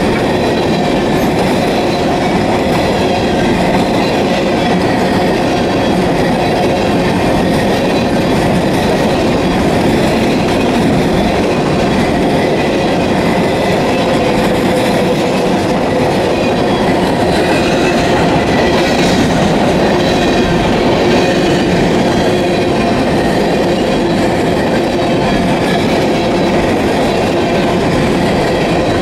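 Long coal train's hopper cars rolling past close by at steady speed: the steel wheels on the rails make a loud, unbroken rumble, with a few faint steady tones over it.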